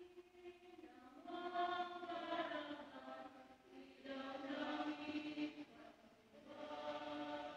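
Slow hymn to St Augustine, sung in long held chant-like phrases with short breaks between them.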